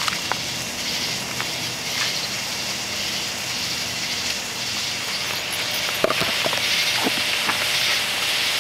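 A steady hiss of flame as a blowtorch lights a large pile of black snake fireworks, with a few small crackles about six seconds in.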